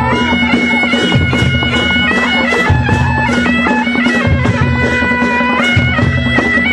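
Panche baja ensemble playing: a shehnai-type reed pipe carries a nasal, wavering melody over a steady drone, with a repeating drum and cymbal beat.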